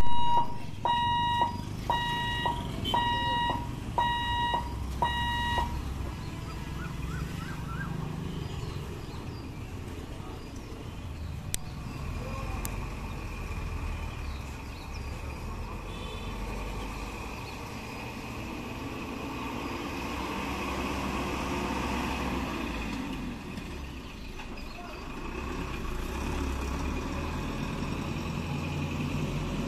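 Electric level-crossing barrier's warning buzzer beeping about once a second, six times, while the boom gates are raised. After that, road traffic crosses the tracks: motorbikes, a battery e-rickshaw and a truck rumbling over the crossing.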